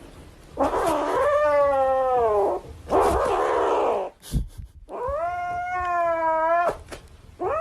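A cat yowling in long, drawn-out calls, four in a row, each held for one to two seconds with a slight fall in pitch, the last one still going at the end.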